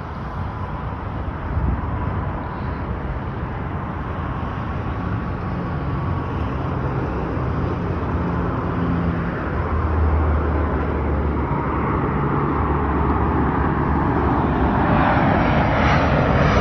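Jet airliner on approach to land, its engine noise growing steadily louder as it comes closer, with a faint whine that fades out about halfway.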